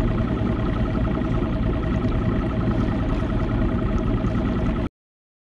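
Bass boat's outboard motor running steadily at low speed: a constant hum over a low rumble, cutting off suddenly about five seconds in.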